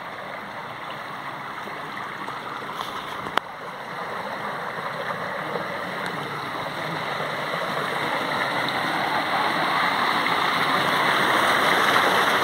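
Tubewell water gushing from its outlet into a concrete tank and rushing down an irrigation channel, a steady rushing that grows louder as the pour gets closer. A single sharp click a few seconds in.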